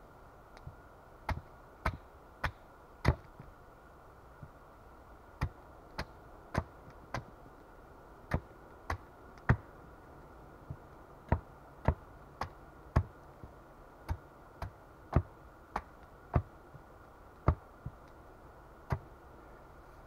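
Axe blade set in the end of a wooden pole, knocked down again and again onto a wooden chopping stump: a series of sharp wooden knocks at a fairly even pace of a little under two a second, starting about a second in, with a short pause around four seconds in.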